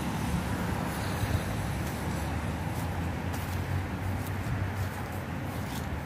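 Steady low rumble of wind buffeting the phone's microphone outdoors, with a few faint brief rustles in the second half.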